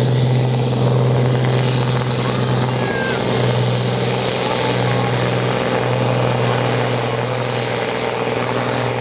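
Farm tractor's diesel engine running flat out at steady high revs, pulling the weight sled down the track.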